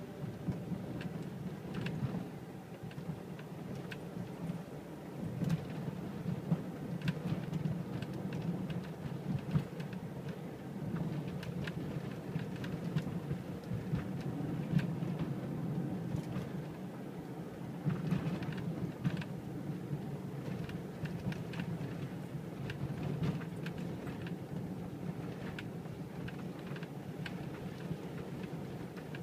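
Sliding door of a 2013 Mercedes-Benz Viano rattling, with irregular clicks and knocks over the steady rumble of the van on the road.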